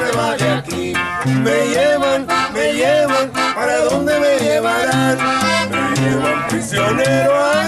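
Live norteño conjunto music: a Gabbanelli button accordion and a twelve-string bajo sexto play with a steady bass line, and two men sing the melody together.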